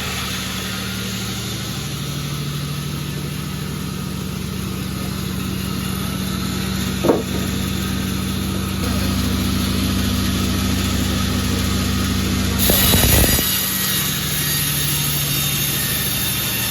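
Sawmill's engine running steadily with a low, even hum. A single sharp knock sounds about seven seconds in, and a short, louder rasping burst comes about thirteen seconds in.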